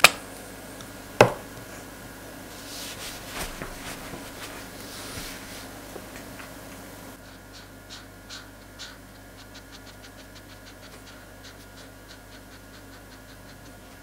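Two sharp clicks near the start as a felt-tip marker's cap is handled, then the marker rubbing on paper in many short, quick colouring strokes.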